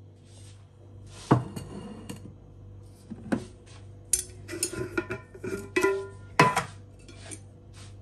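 Kitchenware clatter: a ceramic bowl knocks down onto a wooden table about a second in, then a glass jar and its screw lid clink and scrape as the jar is handled and opened, with several short ringing clinks.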